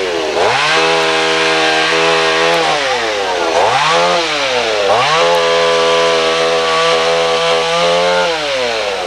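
Two-stroke chainsaw revved up to full speed three times. It holds high for a couple of seconds at a time and drops back toward idle in between and again near the end, as a tree is sawn up.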